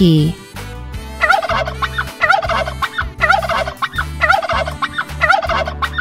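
Turkey gobbling: five rapid, warbling gobbles about a second apart.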